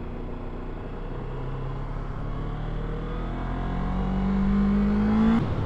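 Kawasaki ER-6f's parallel-twin engine accelerating, heard through a helmet chin-bar mic: its note climbs steadily for a couple of seconds, then drops sharply near the end.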